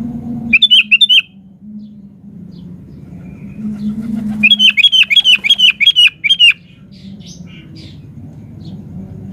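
Sooty-headed bulbul (kutilang) singing in loud runs of quick repeated notes: a short burst of about five notes about half a second in, then a longer run of about eight notes in the middle, over a low steady hum.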